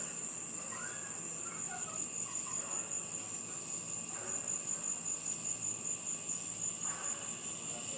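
Crickets trilling in a steady, high-pitched chorus, with a faint regular pulsing.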